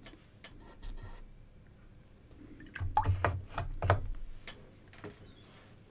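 A small paintbrush working thick acrylic paint: faint taps and scrapes at first, then a louder cluster of clicks and knocks about three seconds in, with a few dull bumps against the table.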